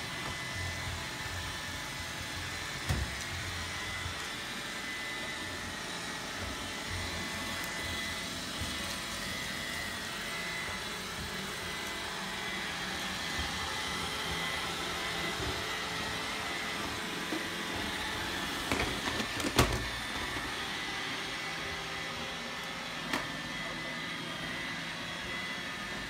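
Roomba robot vacuum running steadily, a constant motor and brush noise with a thin high whine. A few sharp knocks stand out, the loudest a short cluster about three quarters of the way through.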